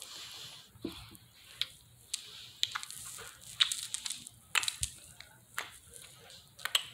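Scattered light clicks and rustles close to the microphone, about ten at irregular intervals, over a faint hiss.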